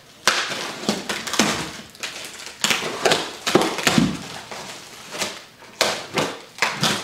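Plastic wrapping crinkling and a cardboard box being pulled about and handled: a run of irregular rustles and scrapes with a few duller knocks.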